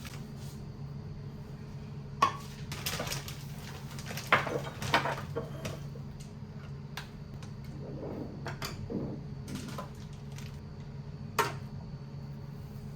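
Dishes and cutlery being handled, clinking and knocking, with a few sharp knocks about two, four and eleven seconds in. A steady low hum runs underneath.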